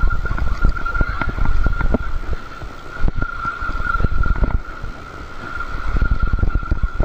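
Wind rumbling on the microphone while a spinning reel is wound against a hooked fish, its handle turning with irregular clicks and knocks, over a thin steady whine.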